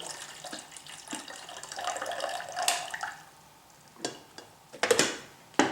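Water poured from a coffee pot into a tea kettle, the splashing stopping about three seconds in, followed by a few sharp clicks and knocks.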